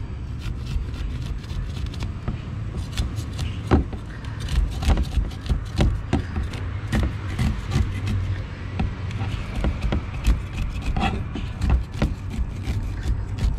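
Knife blade scraping the scales off a small barracuda on a plastic cutting board: a quick, irregular run of rasping scrapes and clicks as the scales come away.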